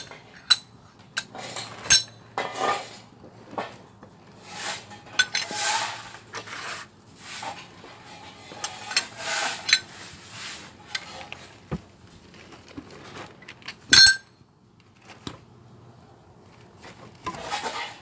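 Hammer striking steel shims on top of a concrete pier cylinder, driving them tight against the underside of a raised concrete slab: a run of sharp metallic clinks and knocks, some ringing, with one hard blow about three-quarters of the way through. The shims are locking the pier in place so the bottle jack can be removed.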